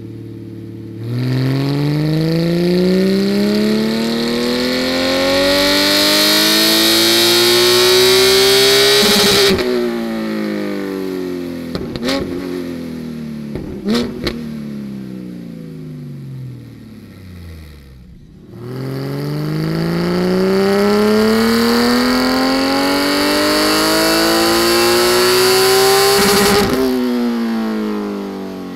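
Porsche 718 GT4's 4.0-litre flat-six with a Soul Performance exhaust making two full-throttle dyno pulls, each a long wail climbing to about 8,200 rpm, then falling away as it coasts down. A couple of sharp pops from the exhaust on the overrun after the first pull.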